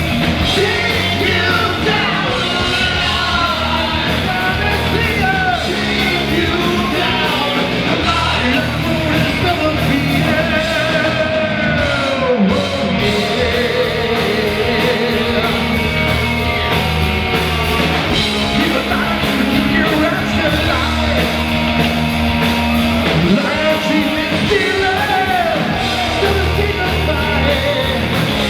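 Rock band playing live, with a lead singer belting over the full band, loud and continuous.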